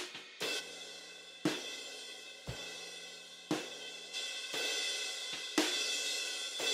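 Recorded drum kit played back through its compressed overhead microphones: cymbals ringing in a sustained wash with a new hit about once a second and one deep kick-drum hit near the middle, the compression bringing up the room ambience.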